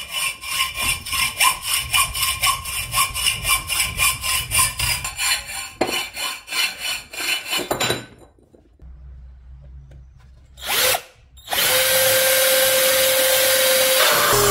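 Hacksaw cutting a tube in quick back-and-forth strokes, about three a second, stopping about eight seconds in. After a pause and a short burst, a cordless drill runs steadily at a constant pitch.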